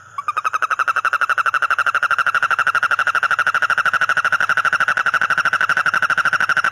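A frog calling with its vocal sac inflated: a loud, continuous, rapidly pulsing trill with a steady high pitch, starting just after the beginning and holding on without a break.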